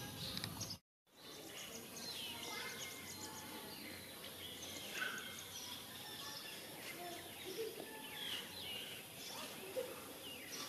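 Outdoor background of small birds chirping and twittering over a steady hiss, with the sound cutting out completely for a moment about a second in.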